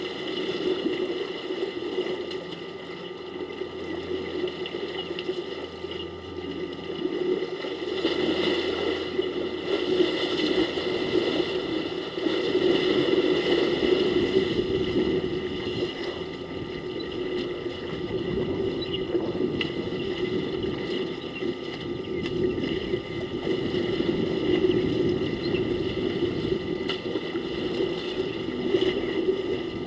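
Water splashing and sloshing as a herd of African elephants wades and rolls in a waterhole, swelling and easing in loudness as they move.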